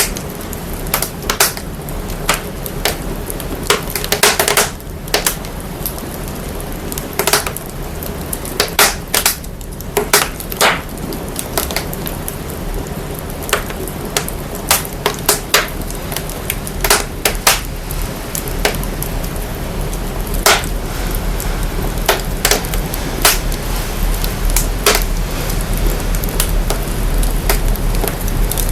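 Fire crackling, with irregular sharp pops over a steady hiss, its sound processed to bring up a deep low rumble that grows stronger about halfway through.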